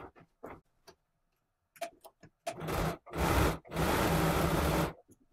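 Domestic sewing machine stitching in short runs: a few faint clicks, then three bursts of running in the second half, the last and longest about a second.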